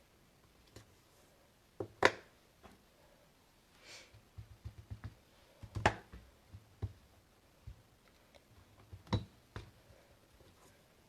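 Clicks and knocks from stamping tools being handled: the hinged plate of a Stamparatus stamping platform and an ink pad. There are three sharp knocks, about 2, 6 and 9 seconds in, with lighter taps and clicks between them.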